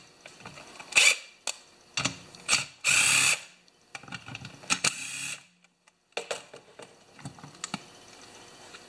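Cordless drill-driver run in several short bursts, backing out the screws that hold down the carburetor of a Homelite XP1020 chainsaw engine. Small clicks and clinks of metal parts come between the bursts.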